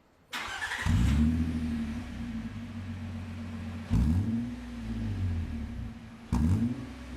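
Nissan E51 Elgrand 2.5L V6 starting up through an aftermarket stainless exhaust with center and rear silencers. It cranks briefly, catches about a second in and settles to a deep bass idle. The throttle is then blipped twice, about halfway through and near the end.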